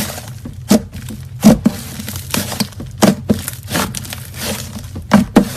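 Slime being pressed and worked by hand, giving irregular sharp pops and crackles, several a second.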